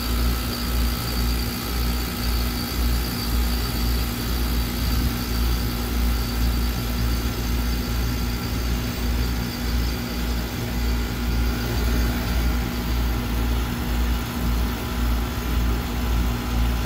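Residential heat pump outdoor unit running: the compressor's steady hum, with a constant tone over an uneven low rumble.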